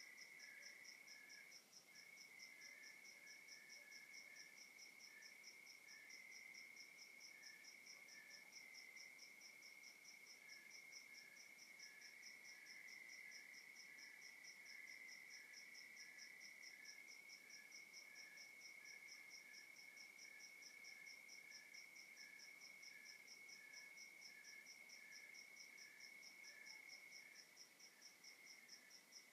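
Faint night chorus of crickets: one chirps in an even, steady rhythm of about three chirps a second over a continuous trill, with scattered softer chirps.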